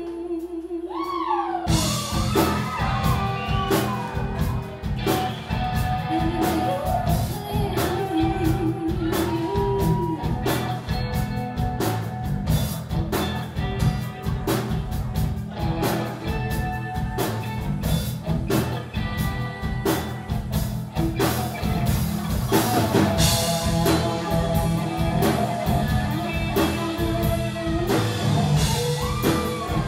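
Live rock band playing: a woman's sung line over a quieter backing, then the full band (drum kit, electric guitars, bass and keyboard) comes in loud about two seconds in and plays on steadily.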